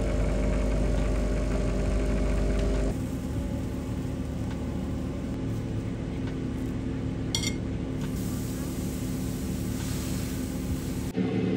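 Car engine and road noise heard from inside the cabin while driving: a steady low hum that changes abruptly about three seconds in and again near the end.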